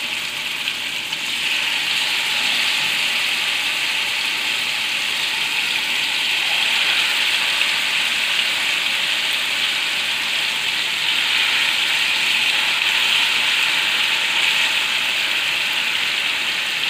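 Masala-coated fish steaks shallow-frying in hot oil in a nonstick pan, a steady sizzling as more pieces are laid in one by one.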